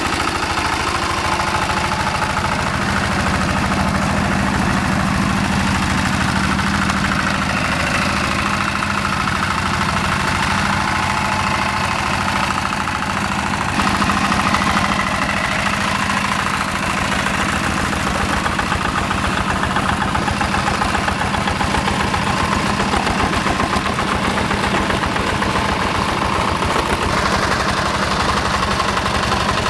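Yanmar TF85 single-cylinder diesel engine on a two-wheel hand tractor running steadily with a fast putt-putt beat, under load as it drags cage wheels through paddy mud. The sound shifts slightly about halfway through.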